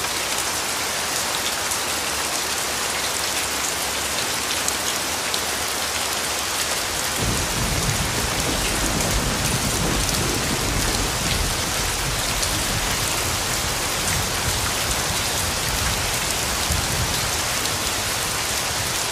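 Steady heavy rain pouring down in a dense hiss. About seven seconds in, a low rumble of thunder sets in and keeps rolling under the rain.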